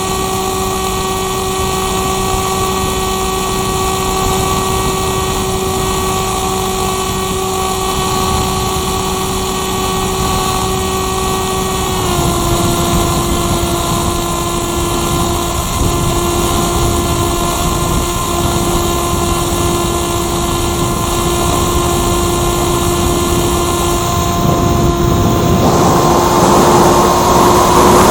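Electric motor and propeller of a 2-metre RC motor glider, heard from the onboard camera, running as a steady whine that drops slightly in pitch about twelve seconds in. Near the end a rush of air swells over it.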